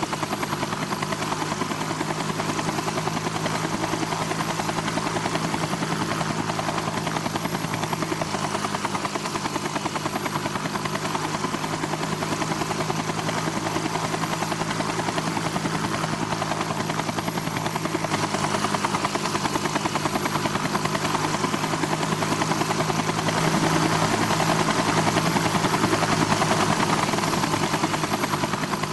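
Helicopter running, with a steady rapid rotor chop over a constant engine hum. It grows louder in the second half and eases off slightly near the end.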